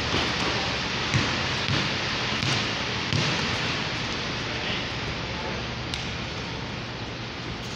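A basketball bouncing on a concrete floor, four or so thumps in the first half at uneven intervals of about half a second to a second, over a steady background hiss and din.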